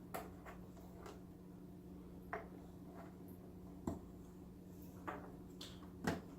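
Faint, scattered clicks and taps of the plastic parts of a canister filter being handled, about eight in all, over a steady low hum.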